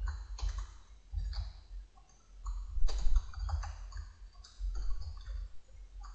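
Typing on a computer keyboard: uneven runs of keystrokes with short pauses between them, as a line of ActionScript code is entered.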